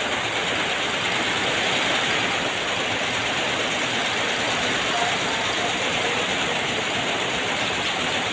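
Steady running-vehicle noise: an even rushing hiss with no breaks or changes.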